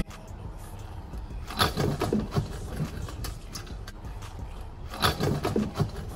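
Stunt scooter wheels rolling on concrete, with clattering knocks of the deck and bars about one and a half to two and a half seconds in and again, loudest, around five seconds in as the rider bails and the scooter hits the ground.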